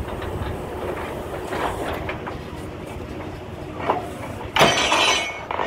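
Truck-mounted borewell drilling rig running with a steady mechanical clatter. A sudden loud rush of noise about four and a half seconds in lasts about a second.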